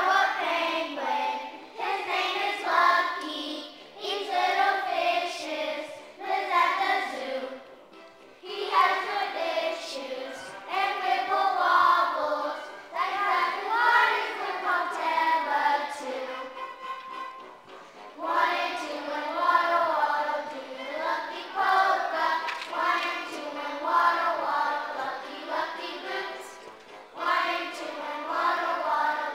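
Children's voices singing a polka song together, in sung phrases with short breaks between lines.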